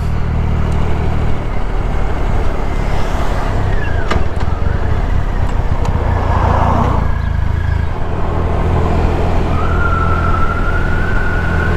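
Motorcycle engine running under way, with wind and road noise; the engine note shifts about a second and a half in. A thin steady high whistle joins near the end.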